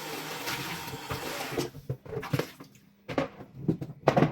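Kitchen tap running for about a second and a half, then shut off, followed by several short knocks and clatters of kitchenware, the loudest near the end.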